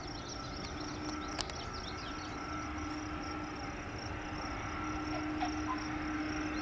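Steady distant hum of an Airbus A300-600R freighter's Pratt & Whitney PW4158 jet engines at idle as it taxis, with insects chirping in the grass. A single sharp click sounds about a second and a half in.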